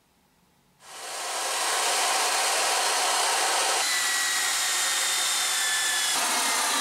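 Handheld power drill with a long bit boring into sandstone, starting about a second in and then running steadily with a faint motor whine that sags slightly in pitch partway through. The holes are for anchoring rebar.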